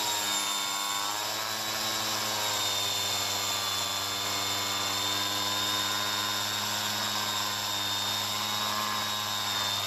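Angle grinder running with a steady whine, trimming down a rubber truck bump stop.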